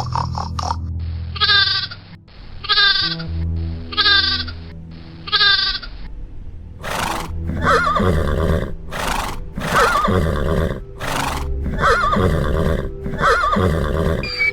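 Animal calls over background music: four short wavering calls about a second apart, then from about halfway a run of louder, harsher calls.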